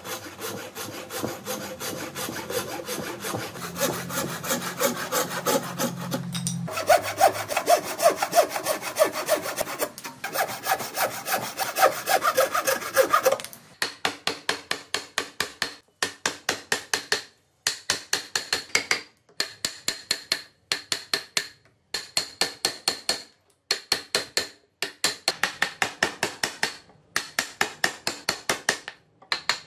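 A hand saw cutting wood in quick back-and-forth strokes for about the first half. Then a hand chisel carves and shaves wood in short scraping bursts with brief pauses between them.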